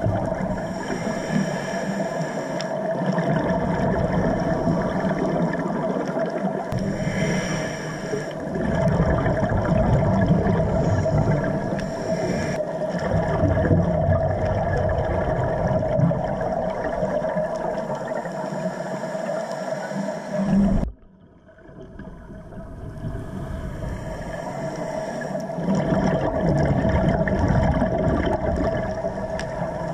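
Underwater sound on a scuba dive: a steady droning hum, like a boat motor heard through the water, with rushes of exhaled regulator bubbles every several seconds. The sound drops out suddenly about two-thirds of the way through and fades back in.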